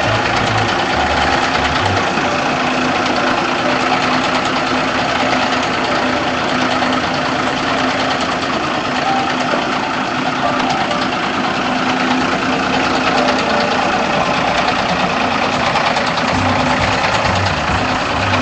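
Blue Bird school bus engine running at low speed, a steady hum with an even note, as the bus is slowly maneuvered.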